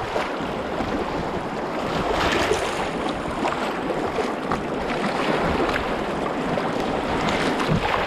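White-water rapids rushing, with waves splashing against the bow of a sea kayak as it runs down through them.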